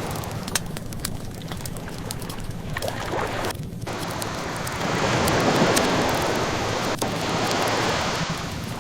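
Ocean waves washing in, one swelling about five seconds in, over the light crackle of a wood fire with scattered sharp pops.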